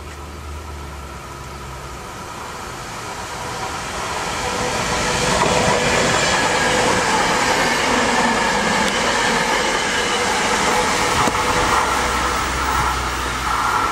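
SEPTA Silverliner IV electric multiple-unit commuter train approaching and passing close by, growing louder over the first five seconds to a steady rumble of wheels on rail with a few steady whining tones over it.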